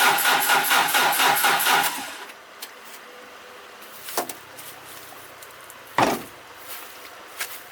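Old truck's engine running with a rapid, even pulse, then shut off about two seconds in. Two short sharp knocks follow, about two seconds apart.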